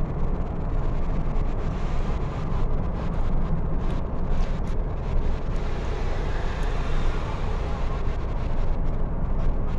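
Steady low rumble of a car driving, road and engine noise without pauses.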